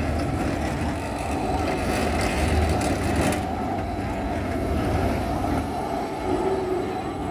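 Stadler Variobahn low-floor tram passing close by: a steady rumble of wheels on rails with running-gear noise, the higher hiss above it dropping away about three seconds in.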